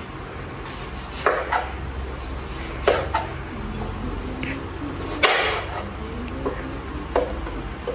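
Kitchen knife slicing a red onion into rings, the blade knocking on a wooden cutting board a handful of times at uneven intervals. A low steady hum runs underneath.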